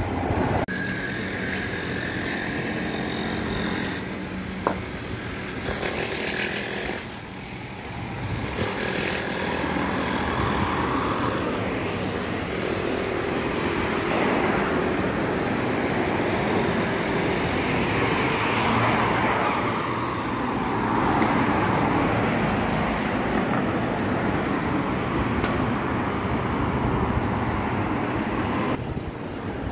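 Loud, steady engine noise with no break.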